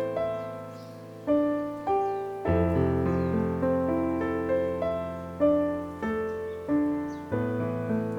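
Background piano music: a slow melody of struck notes, each fading away, over held low chords that change twice.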